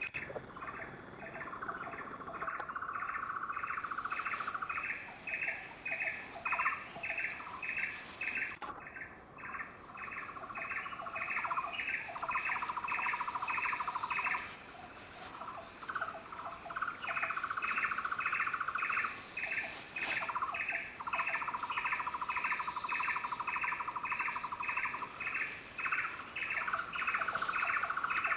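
Forest chorus of a bird or insect repeating a short chirp about three times a second, taking turns with buzzing trills that each last two to three seconds. A steady high insect whine runs underneath.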